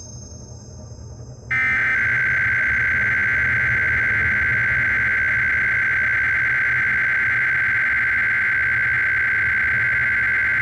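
A loud, steady, high-pitched electronic alert tone, typical of an Emergency Alert System broadcast, starts about a second and a half in and holds unbroken over a low rumble.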